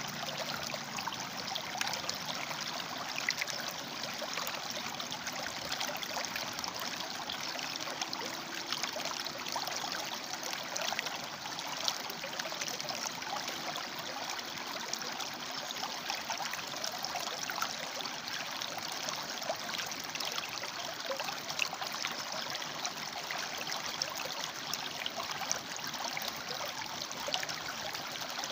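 River water flowing and splashing among rocks, a steady rushing with many small bubbling flickers.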